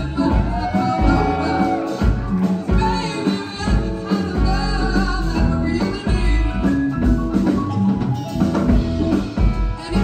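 A live rock band playing: drum kit, bass, electric guitars and keyboard, with a voice singing over it.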